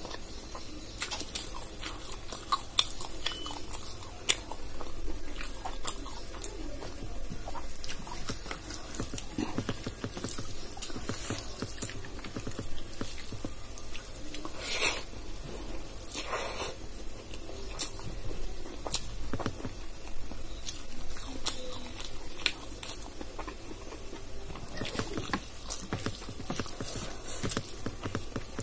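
Close-up eating sounds: a person chewing mouthfuls of dal and rice, and fingers mixing rice on a steel plate. Small clicks are scattered throughout, with two louder ones a little past halfway.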